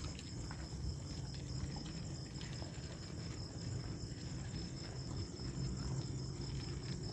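Crickets chirping steadily and shrilly, over a low rumble with a few faint scattered clicks.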